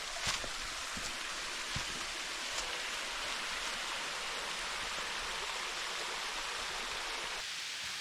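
Steady rush of a mountain stream's flowing water, with a few faint knocks in the first two seconds.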